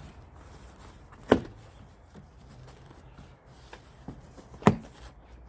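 Two sharp knocks about three seconds apart from handling a large cardboard shipping box of exhaust pipes as it is opened, with faint handling noise between them.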